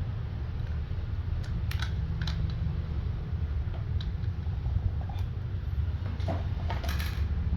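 Scattered light plastic clicks and taps as small slime-kit containers and pieces are handled, over a steady low hum.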